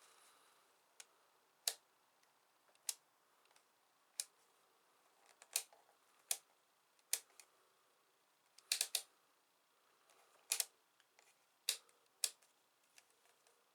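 Multimeter rotary range switch clicking from position to position: a dozen or so sharp clicks at uneven spacing, a few in quick pairs.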